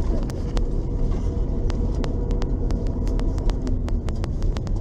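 LAZ 699R bus engine running with a steady low rumble. Frequent sharp, irregular clicks and rattles sound over it.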